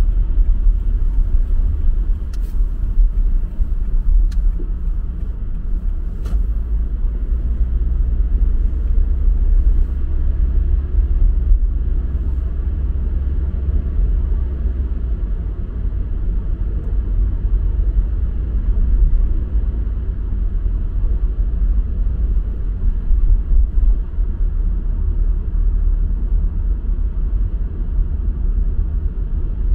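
Steady low road rumble of a car being driven, heard from inside the cabin. A few faint clicks come about two seconds apart in the first several seconds.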